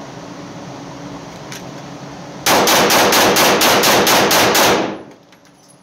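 Arex Delta Gen 2L 9mm pistol firing a fast string of about ten shots, roughly four a second, echoing in an indoor range. It is a function test with mixed hollow-point and ball loads. The string starts a little past two seconds in and stops abruptly near the end.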